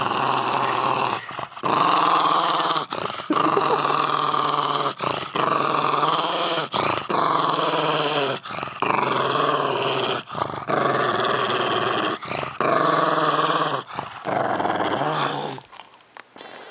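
A pug growling over the squash he is eating: food guarding. Long, continuous growls are broken by short pauses every second or two, and they die away about a second before the end.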